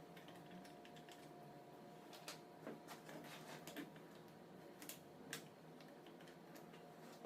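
Near silence: a faint steady hum with scattered light clicks and taps at irregular intervals, typical of small parts or tools being handled on a bench.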